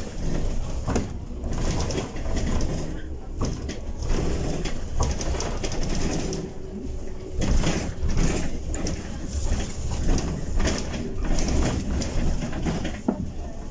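Cabin noise inside a moving Bolloré Bluebus 12-metre electric city bus: a steady low road rumble with scattered knocks and rattles.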